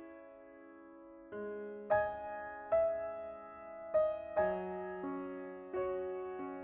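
Slow background piano music: single notes and chords struck about every half second to a second, each ringing and fading away.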